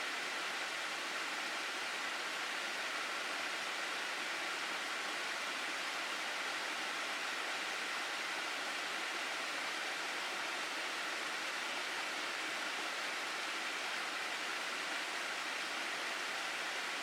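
Water of a mountain gorge stream rushing steadily, an even, unbroken hiss that neither rises nor falls.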